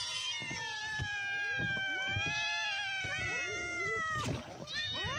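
A group of cats meowing at once: many long, overlapping, drawn-out meows. They are hungry cats begging to be fed fish.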